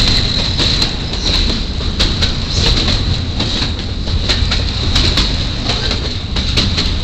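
Iowa Interstate double-stack container train's well cars rolling past close by: a steady rumble with frequent quick clicks of wheels over rail joints, over a steady high-pitched whine.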